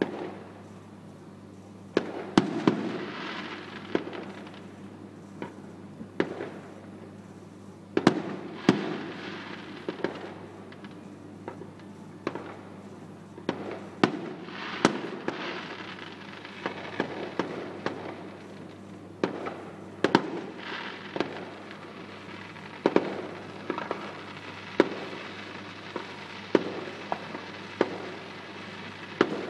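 Aerial fireworks display: shells bursting in irregular sharp bangs every one to three seconds, some followed by a few seconds of crackle.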